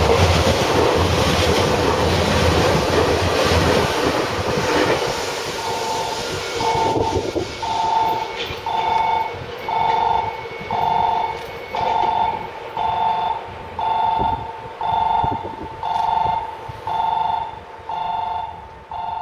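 Nankai 11000 series four-car electric limited express running through a station without stopping: a loud rush of wheels on rail that fades over the first five seconds as it pulls away. After that, an electronic two-tone beep repeats about once a second.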